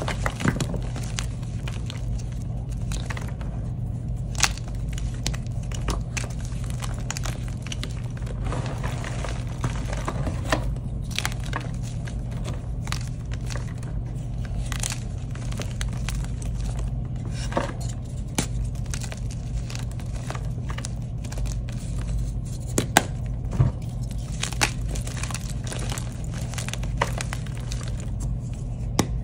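Blocks of dyed gym chalk being crushed and crumbled by bare hands: a continuous soft, crunchy crackling of powdery chalk breaking up, with a few sharper snaps as pieces give way. A steady low hum runs underneath.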